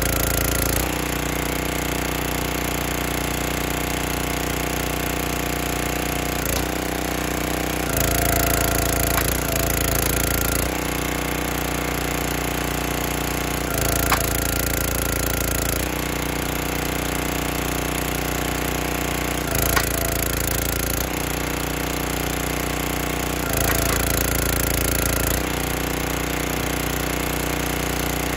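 Small gas engine of a 32-ton Performance Pro log splitter running steadily, growing louder for a couple of seconds at a time as the ram works. Oak rounds crack sharply as they split, about three times.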